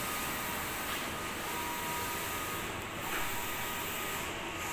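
Steady hum and hiss of running machinery, with a faint steady high-pitched whine.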